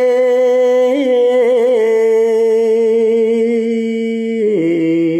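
Male voice chanting Khmer verse in the lamenting pilap style, drawing out long held notes with a slight waver. The pitch steps down a little about two seconds in and drops lower near the end.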